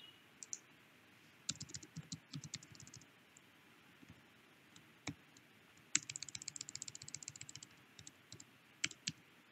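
Faint computer keyboard typing in bursts: a cluster of keystrokes about one and a half seconds in, a lone keystroke near the middle, a fast even run of keystrokes about six seconds in, and a couple of last taps near the end.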